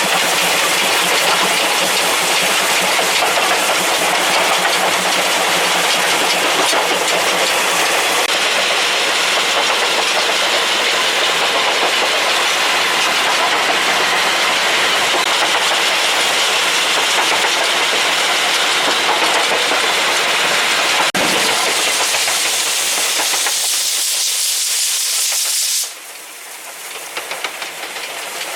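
Steam locomotive under way with a loud, steady hiss of steam. Near the end the hiss stops abruptly, leaving quieter running noise from the train.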